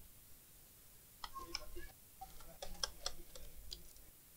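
Faint, irregular light clicks and ticks of a screwdriver working the screws of a laptop's bottom cover, starting about a second in.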